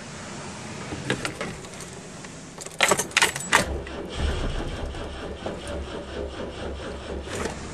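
Keys jangling and a few sharp clicks about three seconds in, then the 1973 BMW 2002tii's four-cylinder engine being cranked by its starter without catching, after 13 years laid up.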